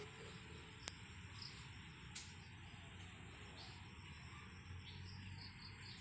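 Faint outdoor insect ambience: a steady high-pitched cricket-like drone with a few soft chirps, and one sharp click about a second in.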